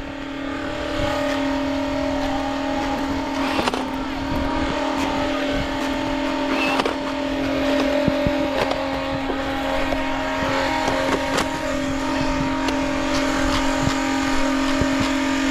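Nerf blaster flywheel motors spinning with a steady electric whine, with scattered sharp clicks and knocks.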